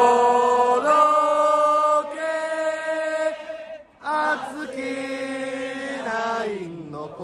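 Large crowd of Orix Buffaloes fans singing a cheering song in unison, unaccompanied, in long held notes. There is a short break about four seconds in, and the pitch slides down near the end.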